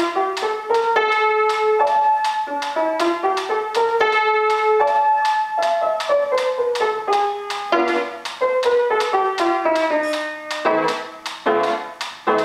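Grand piano played by a child: a quick run of notes, about four a second, with the tune stepping downward in the middle and lower, heavier notes coming in near the end.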